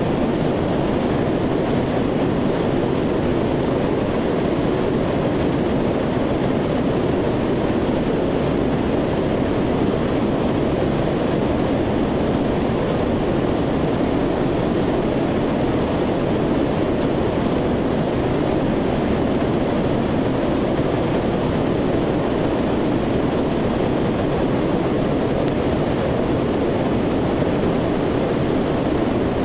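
Steady engine and airflow noise of a Lockheed C-130 Hercules and its four turboprop engines in cruise flight, heard from aboard the aircraft, a constant low drone with no change in pitch or level.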